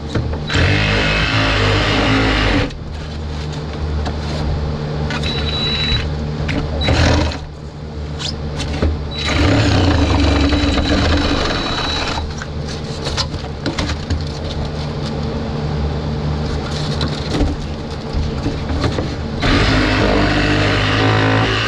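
Cordless DeWalt reciprocating saw running in stop-start bursts as it cuts out the old flotation foam and rotten stringers inside a boat hull. There are several runs of a few seconds each, with quieter pauses between.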